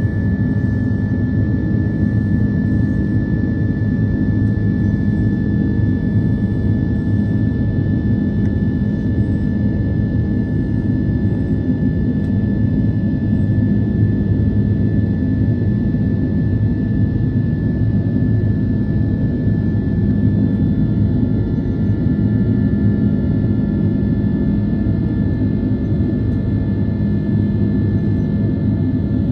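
Jet airliner cabin noise while climbing out after takeoff: a loud, steady engine and airflow rumble with a thin, steady whine on top, heard from inside the cabin.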